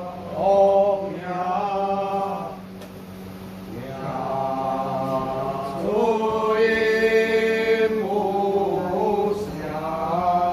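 Ritual chanting in long, drawn-out held notes that slide up and down in pitch, phrase after phrase, with a short lull about three seconds in. A steady low hum runs underneath.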